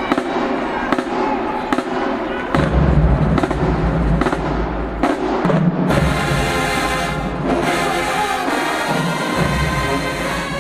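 Marching band playing: sharp drumline strikes echoing in the arena, then from about halfway through the brass joins with sustained chords over heavy bass drum.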